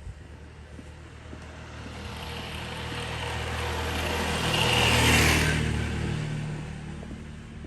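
A motor vehicle passing by. Its engine hum and tyre noise build up to a peak about five seconds in, then fade away, dropping in pitch as it goes past.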